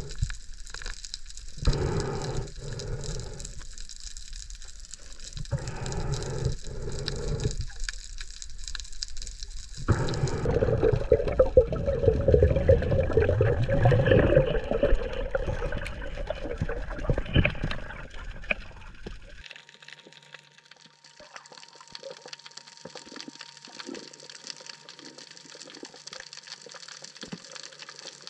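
Underwater sound picked up by an action camera's housing: water rushing in uneven surges as the diver moves, loudest in a long noisy stretch around the middle. It then drops suddenly to quieter underwater ambience with faint scattered crackling.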